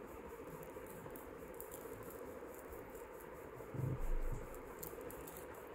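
Quiet steady background hum and hiss, with one soft low thump about four seconds in from hands handling a beaded chain on a cloth-covered surface.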